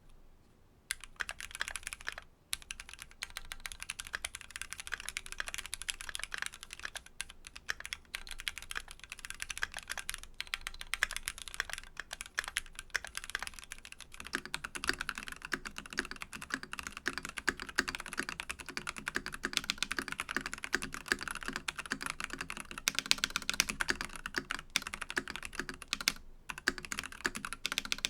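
Fast, continuous typing on stock Keychron mechanical keyboards (Q1 and V1), a steady stream of key clacks. About halfway through the clacks turn deeper and fuller, as the typing moves to the other keyboard.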